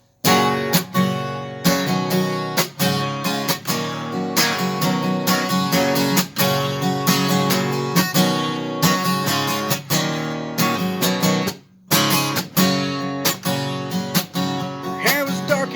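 Acoustic guitar strummed in a steady rhythm as the intro of a country song, with a short break about three-quarters of the way through.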